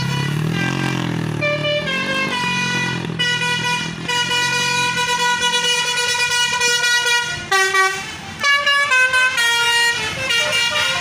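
Tour bus telolet horn playing a melody of clear, stepped notes, each held briefly before jumping to the next pitch. A low engine rumble sits under the first couple of seconds.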